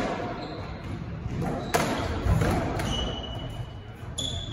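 Squash rally: the ball cracking off racquets and walls, sharp impacts about two seconds apart, with trainers squeaking on the wooden court floor near the end.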